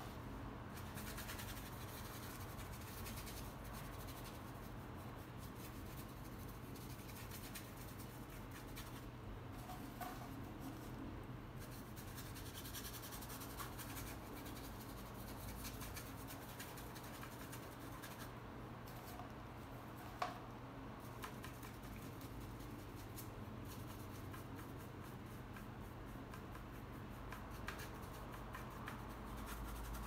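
Faint scratchy rubbing of a paintbrush working black acrylic paint across a canvas, over a low steady hum, with one brief tap about twenty seconds in.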